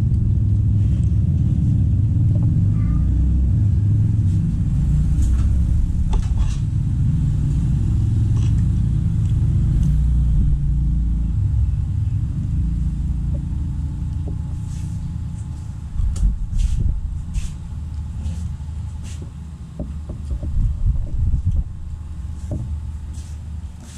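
A loud low rumble that fades after about 11 seconds. In the second half, scattered clinks of forks and spoons on plates.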